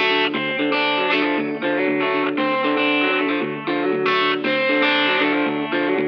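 Background music played on guitar, a run of chords and notes with no pauses.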